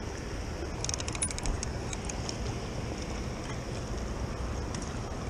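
Steady rushing noise of shallow flowing river water, with wind on the microphone and a low rumble underneath. A quick run of light clicks comes about a second in.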